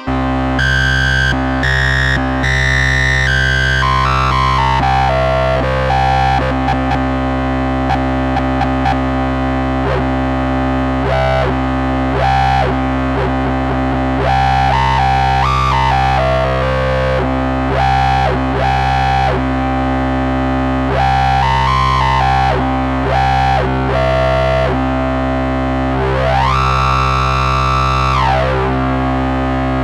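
Moog Subsequent 37 analog synthesizer played duophonically with hard sync: a low note held steady under a higher line of notes that step and glide between pitches. Near the end a tone sweeps up and back down.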